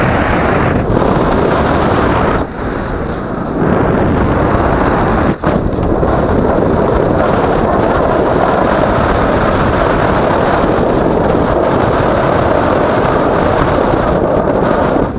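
Wind rushing over the camera's microphone in paraglider flight: a loud, steady buffeting hiss that eases briefly a little after two seconds in.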